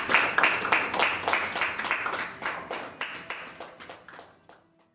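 Small audience applauding, with separate hand claps audible, fading away over about four seconds until it stops shortly before the end.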